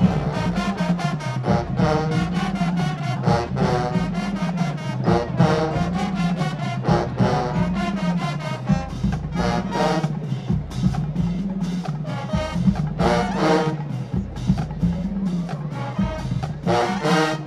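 Marching band playing: drums beat a fast, steady rhythm under a repeating low brass bass line, with loud brass stabs over the top. The band cuts off sharply near the end.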